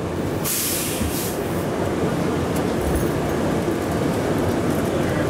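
Steady running noise inside the cabin of the Plane Train, a rubber-tyred automated people mover, as it travels through its tunnel. There is a brief hiss about half a second in.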